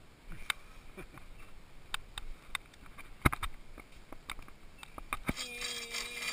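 Zip-line hardware, metal clips and carabiners, clicking and knocking as it is handled on the platform, one knock louder than the rest a little past halfway. Near the end a steady whirr with a low hum sets in and builds as a pulley trolley runs along the steel cable toward the platform.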